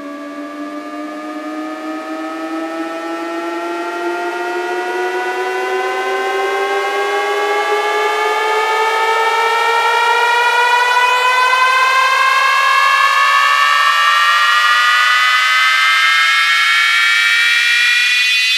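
Electronic riser of a DJ track: a stack of pitched synth tones gliding slowly and steadily upward, growing louder and then holding.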